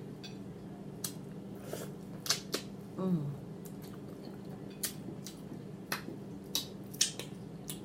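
Close-miked chewing with wet lip smacking: scattered short mouth clicks, and a brief low vocal sound about three seconds in, over a steady low hum.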